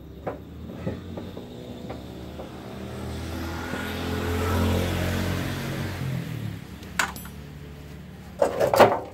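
A motor vehicle passes by, its engine getting louder toward the middle and fading, over light clicks from the socket wrench on the bumper fixings. Near the end, a sharp click and then a loud clatter of sheet metal as the van's front bumper is pulled loose.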